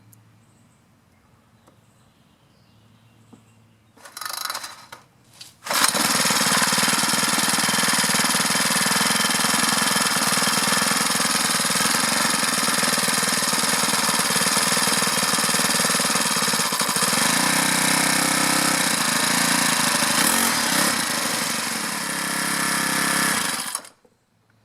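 Craftsman 4-cycle string trimmer engine pull-started: a short pull about four seconds in, then it catches and runs loud and steady with its idle turned up. Its note shifts in the later seconds, and it cuts off suddenly just before the end.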